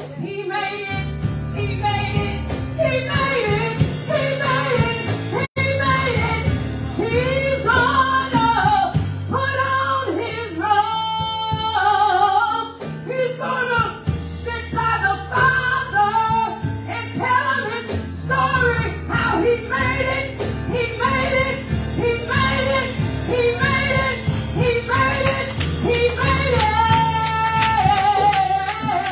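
A solo voice singing a slow gospel song with long, wavering held notes over sustained keyboard chords.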